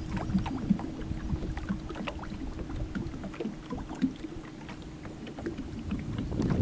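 Small waves lapping and slapping against the hull of a small boat, with low wind rumble on the microphone and a faint steady hum that fades out about a second before the end.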